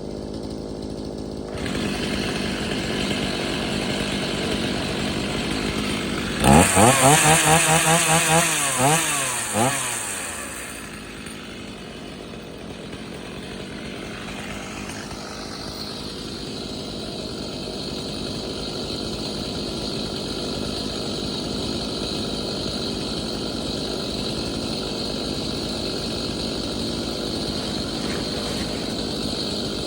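Stihl two-stroke chainsaw engine running, blipped up to high revs several times in quick succession about six seconds in, then dropping back to a steady idle.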